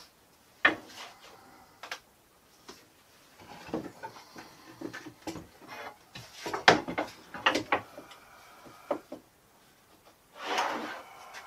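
Wooden workpieces and tools being handled on a workbench: scattered knocks, clicks and short rubbing scrapes, the sharpest knock about two-thirds of the way in, and a scraping rush lasting about a second near the end.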